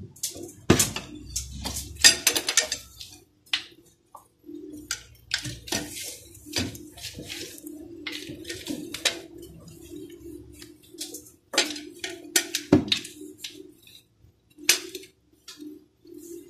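Metal hand tools clinking and knocking against car parts in irregular bursts, with a few louder sharp knocks, over a low hum that comes and goes.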